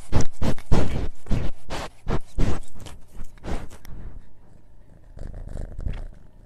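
A cat sniffing at a mini microphone held to its nose: a fast, irregular run of loud close-up sniffs, about three a second, thinning out after about four seconds.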